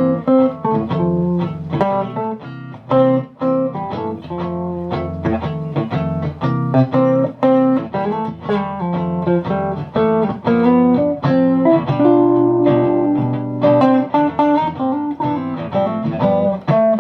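Electric guitar played through a closed-back 10-inch cabinet with a Jensen Tornado speaker: a run of single plucked notes with a few held notes and chords about twelve seconds in.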